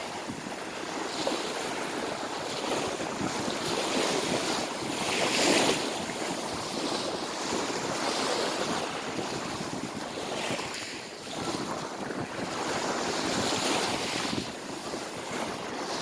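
Small sea waves breaking and washing up and back over a pebble beach, a steady rushing wash that swells and ebbs every few seconds.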